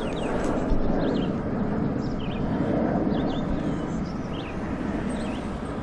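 Small birds chirping in short, quick calls again and again over a steady rushing background noise.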